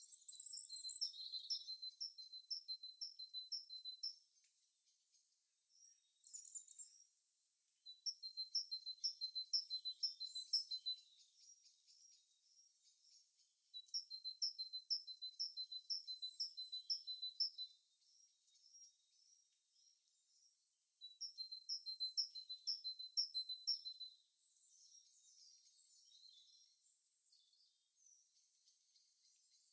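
A songbird singing a fast, high song of one two-note phrase repeated about eight to ten times, each song lasting about three seconds and coming four times with pauses between. Softer scattered chirps of other birds fill the gaps.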